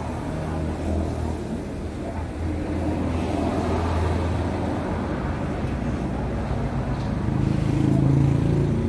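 Motor vehicle engine running with a steady low drone that swells louder near the end.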